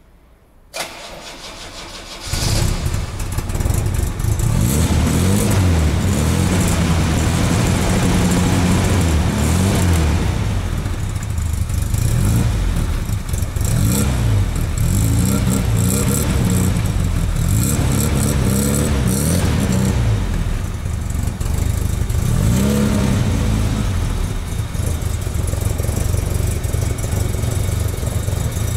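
Opel Manta B GSI's 2.0-litre four-cylinder engine cranking and catching about two seconds in, then running loud and being revved up and down repeatedly.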